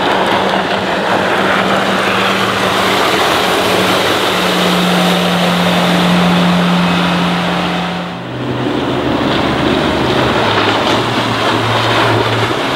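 Suzuki 80 hp four-stroke outboard on a rigid inflatable boat running at speed, a steady engine note over rushing water and wind. After a brief dip about eight seconds in, the engine note is lower.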